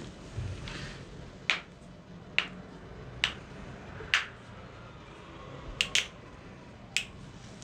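Spinal joints popping under manual adjustment: a series of about seven sharp cracks, spaced roughly a second apart, with two in quick succession a little after the middle.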